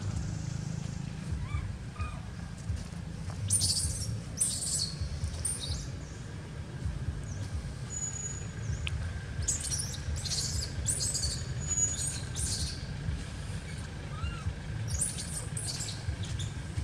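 Birds chirping in three short clusters of quick, high calls, over a steady low rumble.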